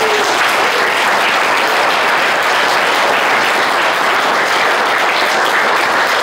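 A roomful of guests applauding, many hands clapping in a dense, steady patter.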